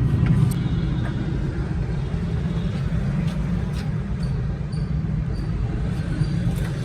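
Suzuki Every van's engine running steadily with a low rumble, a few faint clicks over it.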